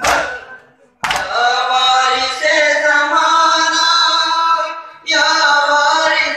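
Male voices chanting a noha, the Shia lament, in long held lines that break briefly near five seconds in and start again. At the start a single sharp slap rings out and dies away before the chant comes in.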